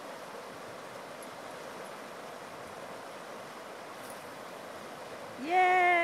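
Steady rush of fast river rapids. Near the end a person's voice gives one long drawn-out call, the loudest sound, falling in pitch as it ends.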